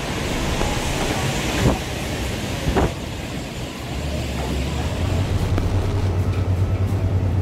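Steady mechanical background noise of an airport boarding corridor, with two short sharp sounds in the first three seconds. About four seconds in, a steady low hum sets in with a regular pulsing.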